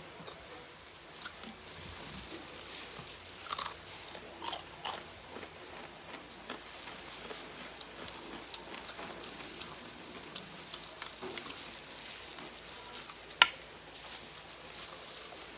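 Chewing and crunching of crispy boneless fried chicken, with a few crisp crunches a few seconds in and one sharp, loud crack about thirteen seconds in.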